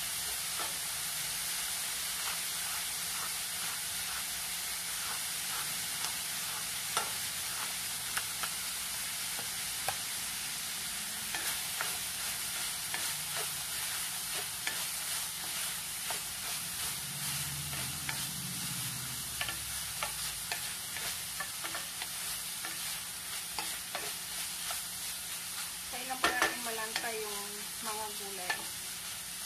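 Ground meat, onion, bell pepper and tomato sizzling in a metal pan while a wooden spoon stirs and scrapes through it, with frequent small knocks of the spoon against the pan. A brief louder sound about 26 seconds in.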